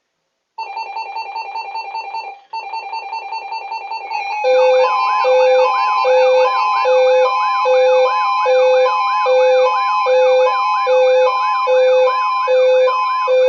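Electronic emergency-alert tones. First a rapidly pulsing beep tone for about two seconds, then after a short break a louder alarm from about four seconds in: a low beep alternating with a higher one, over warbling siren-like sweeps, repeating about every 0.6 s.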